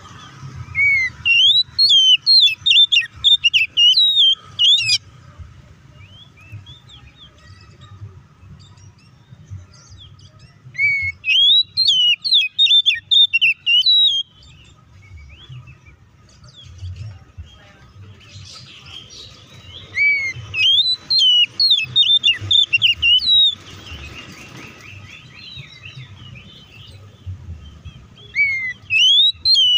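Oriental magpie-robin singing loudly in four bursts of a few seconds each, every burst a rapid run of varied whistles and chattering notes, with quiet gaps between them and the last burst starting near the end. This is the excited, combative full song that keepers play as a lure to make other magpie-robins sing.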